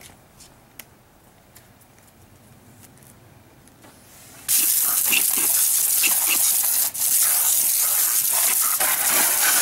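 Water spraying hard from a PVC under-washer wand, starting suddenly about four and a half seconds in after a few faint clicks, with a brief break near seven seconds.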